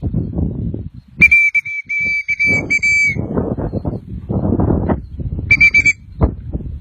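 A shrill whistle with a trilling warble: one long blast of about two seconds, then a short blast near the end, over rough rustling noise.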